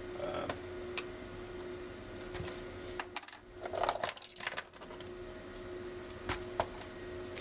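Pocket knife tip prying small glued plastic screw-cover caps off a plastic laptop screen bezel: scattered sharp little clicks, with a short stretch of scraping and clicking a few seconds in.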